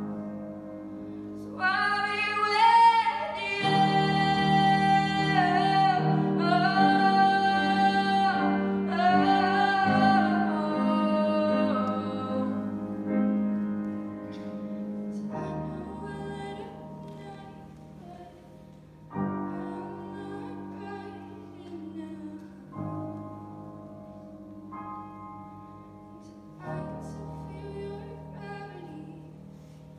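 A young woman singing while accompanying herself on a grand piano. Her voice is loudest in the first half, with long held notes, then drops back to softer singing over piano chords that change every few seconds.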